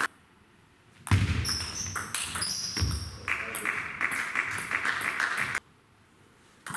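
Table tennis ball knocking and pinging, a sharp tap about every half second, over the steady noise of a sports hall. The sound drops to near silence at the start and again about a second before the end.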